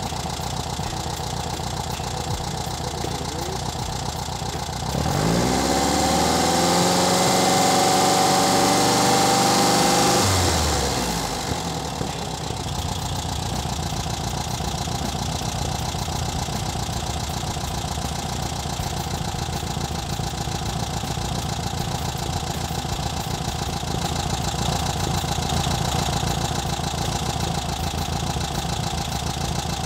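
Air-cooled VW Beetle flat-four engine idling, warmed up. About five seconds in it revs up, holds the higher speed for about five seconds and drops back, then idles steadily at about 800–850 rpm while the carburettor idle is set.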